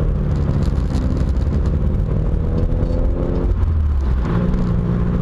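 BMW 2002's 2.0-litre inline-four engine running while the car is driven, heard from inside the cabin over road rumble. The engine note rises slightly, breaks off about three and a half seconds in, and comes back at a lower pitch.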